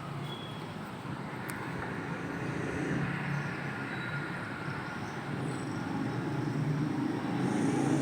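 Motor vehicle traffic passing, a steady low rumble that grows louder toward the end.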